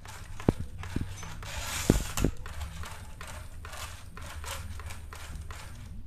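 Miniature single-cylinder diesel engine on a homemade RC offroad car running with a steady low hum and a regular ticking about three times a second. A few sharp clicks come in the first two seconds.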